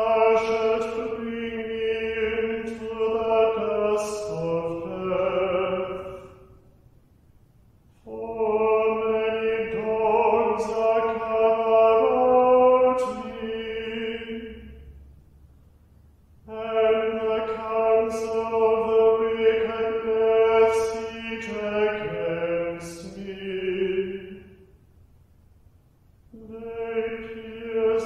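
Plainsong chant, sung on a single reciting note with a short turn of melody closing each phrase. There are three full phrases with brief pauses between them, and a fourth starts near the end.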